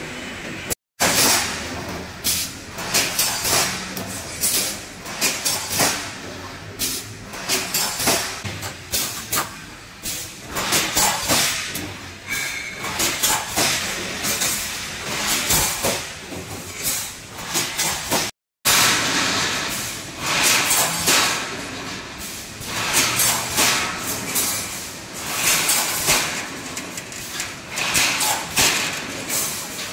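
Pneumatic rebar mesh welding machine at work: repeated clanking strokes of its air-cylinder-driven welding heads with bursts of air hiss, coming irregularly about once a second as the cross wires are resistance-welded onto the line wires. The sound cuts out completely twice for a moment.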